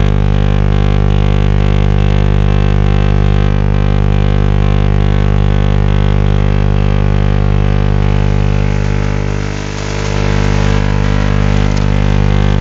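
A continuous buzzing tone rich in harmonics, received on shortwave radio through a WebSDR receiver tuned to 14693.7 kHz. About nine seconds in, the signal briefly fades into hiss, then returns at full strength.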